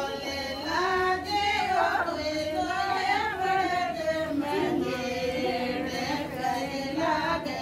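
A group of women singing a Shekhawati folk song together, unaccompanied, in long wavering phrases.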